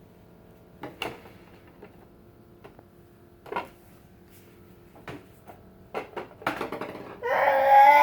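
Scattered plastic clicks and knocks from a toy microwave and plastic toys being handled, with a quick run of clicks after about six seconds. Near the end a baby starts crying loudly.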